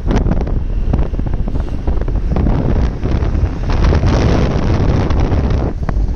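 Wind buffeting the microphone: a dense low rumble, with a louder rush of noise from about two and a half seconds in that eases off near the end.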